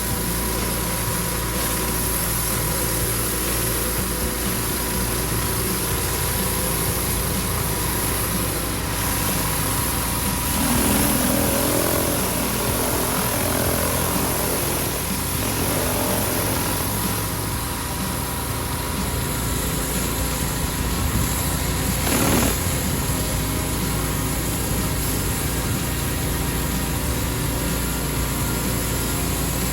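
Pressure washer running steadily: a motor drone under the even hiss of its spray, with a short knock about twenty-two seconds in.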